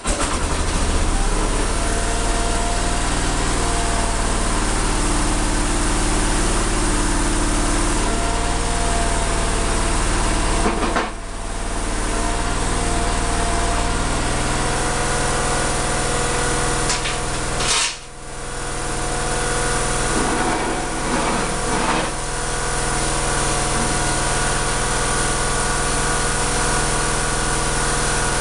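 Case 222 garden tractor's single-cylinder Kohler engine catching as the cranking ends and then running steadily, with two brief dips in level partway through and a single clank just before the second.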